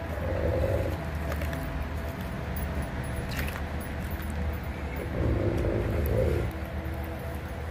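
A large dog growling low over a raw fish as puppies crowd in, warning them off its food. The longest, loudest growl comes about five to six seconds in, with a shorter one near the start and a few small clicks from chewing in between.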